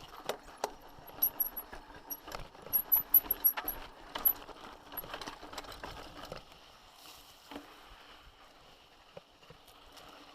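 Irregular clicks and knocks, like steps on rock, with a string of short, very high-pitched chirps between about one and five seconds in.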